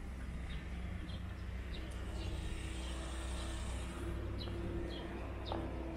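Outdoor street ambience: a steady low rumble with the hum of a distant vehicle engine coming in about two seconds in, and small birds giving short chirps every second or so.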